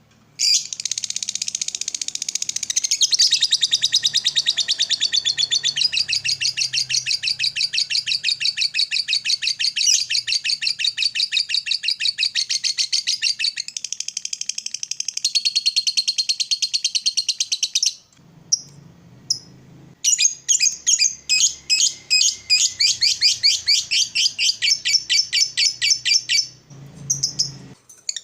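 Lovebird singing its long 'ngekek' chatter: a fast, unbroken run of high, shrill repeated notes lasting about seventeen seconds, then after a short break a second, shorter run.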